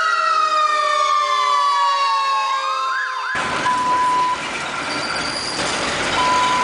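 Soundtrack from the tram's onboard video screens: a falling, siren-like electronic tone that wavers and breaks off about three seconds in, cut by a sudden burst of TV static hiss. Over the static a steady test-tone beep sounds twice, the signal that goes with colour bars.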